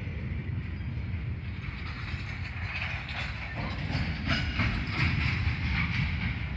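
Amtrak passenger train's bilevel cars rolling past with a steady low rumble; about halfway through, the wheel clatter and metallic rattling grow louder.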